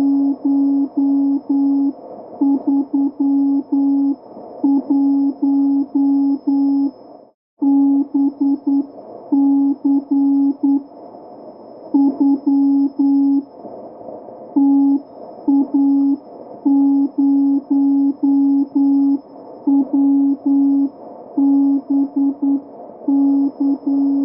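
A single low electronic tone beeping on and off in an uneven rhythm of short and longer pulses, with a brief dropout about seven seconds in.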